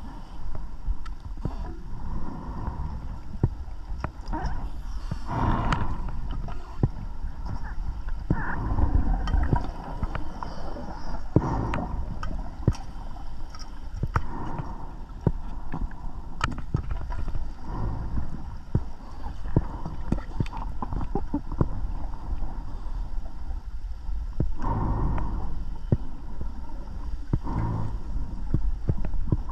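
Scuba diver breathing underwater: a gurgling rush of exhaled bubbles every few seconds, with scattered small clicks between the breaths.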